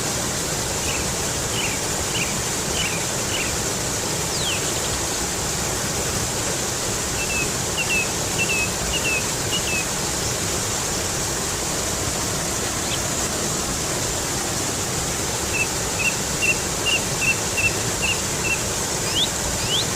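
Stream water running over rocks, a steady rush. Over it a small songbird gives three runs of short, evenly spaced chirps, with a few quick whistled sweeps between them.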